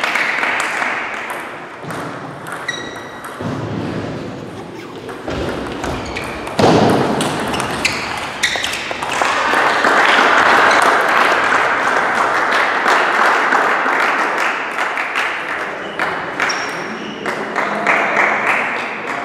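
Table tennis ball clicking off the bats and the table during play, some bounces ringing as short pings. There is a low thud about six and a half seconds in.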